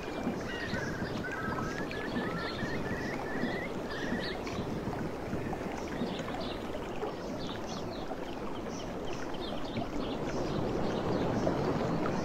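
Steady rushing wind noise. A bird gives a quick run of short rising chirps during the first few seconds, and faint high chirps are scattered through the rest.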